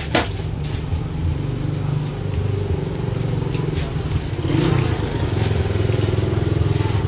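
Steady low rumble of an engine running, with one sharp click just after the start.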